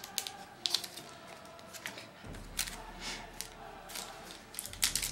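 Cardboard trading cards being handled and flipped through one after another, making scattered light clicks and soft swishes.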